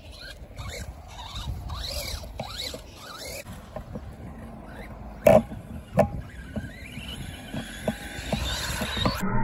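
Electric motor of an RC monster truck (an Arrma Senton converted to a Big Rock) whining up and down in short bursts of throttle. Two sharp knocks come about five and six seconds in, then the whine rises steadily as the truck accelerates.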